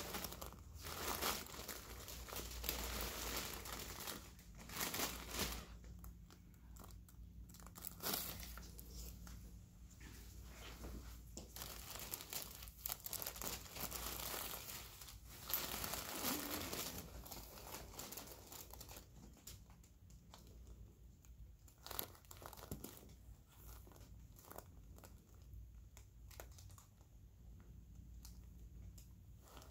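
Paper table cover crinkling and rustling under the patient's head while a wound is stitched, with scattered small clicks. It is busier in the first half and fainter in the second.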